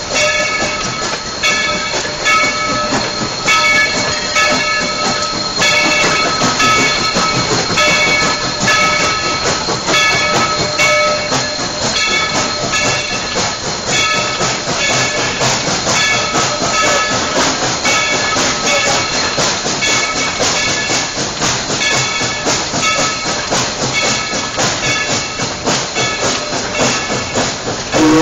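White Pass & Yukon No. 70, a 2-8-2 steam locomotive, labouring slowly up a 5% grade on wet rail without sand, close to stalling. Its exhaust beats come slow and even, a little more than one a second, each with a high ringing tone, over a steady hiss of steam.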